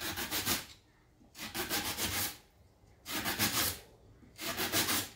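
Kitchen knife slicing through a peeled banana stem into rounds on a wooden cutting board: four separate slicing strokes, each under about a second, with short pauses between.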